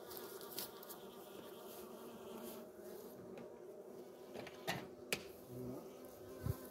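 Honeybees buzzing steadily around an open hive, with a few sharp clicks and a low thud near the end.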